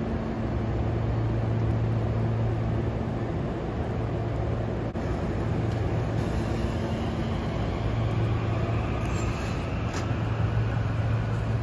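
Rain hiss under a steady low hum, with a SEPTA Silverliner 5 electric train pulling away: a faint whine rises slowly in pitch through the second half as it accelerates.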